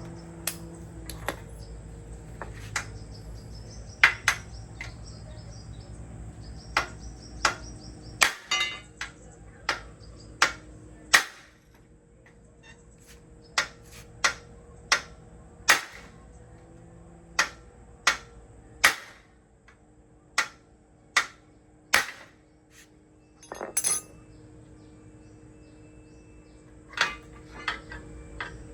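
A hammer striking metal in single, irregular blows, roughly one a second, with a short pause near the end.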